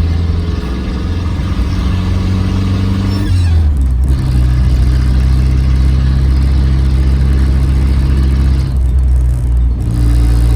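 Inside the cabin of a 1983 Toyota Celica GT-S on the move: its 22R-E four-cylinder engine runs steadily under road and tyre noise, the engine note stepping to a new pitch about three and a half seconds in.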